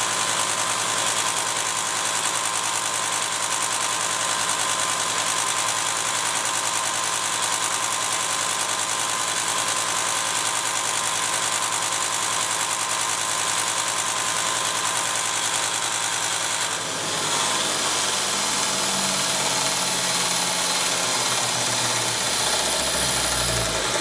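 Bench grinder running steadily while the tip of a Phillips screwdriver bit is ground lightly into a point. The sound changes about seventeen seconds in.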